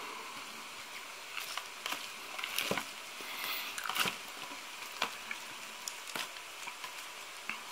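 Hands turning over damp mixed salad leaves in a clear plastic salad tray: soft rustling and crinkling in short, irregular bursts, with scattered light taps and clicks of the plastic.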